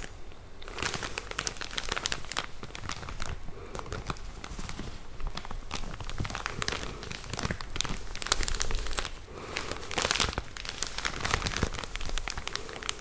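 A package squeezed and crinkled close to the microphone, giving a continuous run of soft crinkling and crackling.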